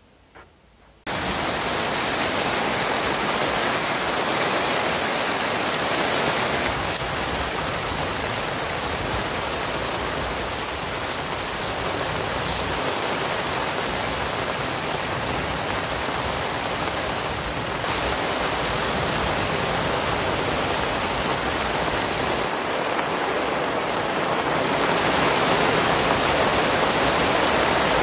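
Heavy rain falling in a downpour, a loud steady hiss that cuts in suddenly about a second in.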